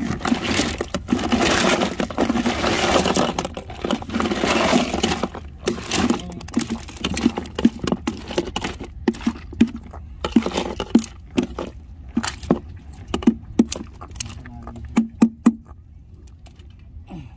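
Freshly caught scad shifting and flapping against ice in a plastic cooler. A scraping rustle comes first, then many irregular sharp taps and clicks that thin out toward the end.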